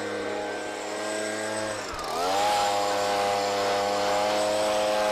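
Handheld leaf blower running, blowing sawdust off a portable sawmill bed. About two seconds in its pitch dips briefly and then picks back up, and the air rush grows louder.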